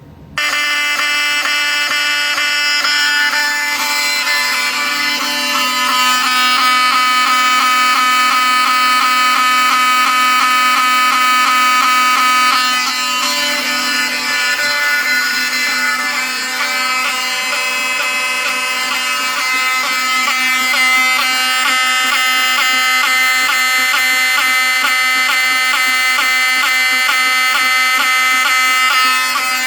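Several vintage fire alarm horns (FCI MS2, Wheelock 7000-series and Pyrotronics 7002) sounding together in one loud, steady buzzing tone that switches on abruptly.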